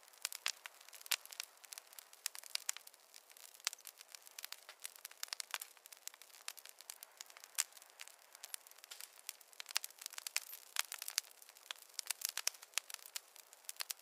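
Wood campfire crackling: irregular sharp pops and snaps, several a second, over a soft hiss of burning.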